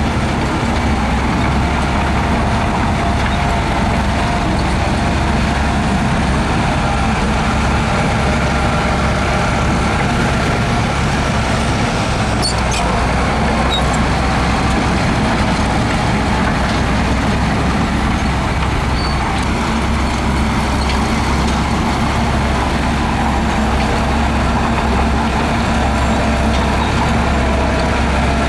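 Heavy earthmoving machinery's diesel engine running steadily, with a few faint sharp ticks about halfway through.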